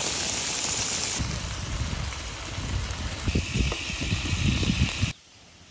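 A steady sizzling hiss from a pan of eggplant and scrambled-egg stir-fry. About two seconds in, irregular low knocks and rumbles join it, and it all cuts off abruptly about five seconds in.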